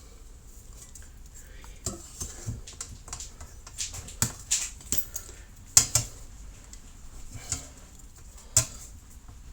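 Irregular metallic clinks and taps of tools and trumpet brass being handled during dent repair work, about ten sharp strikes, the loudest almost six seconds in and another near the end.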